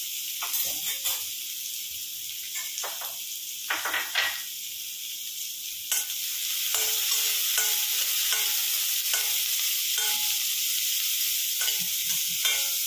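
Chopped onion and green chilli sizzling in hot oil in a stainless steel kadai, with a steel spatula scraping and knocking against the pan as it stirs, the pan ringing briefly at each stroke.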